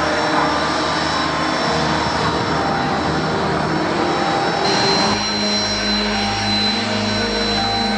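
Jet aircraft engines running with a steady high whine over a broad rush, the low hum shifting abruptly about five seconds in.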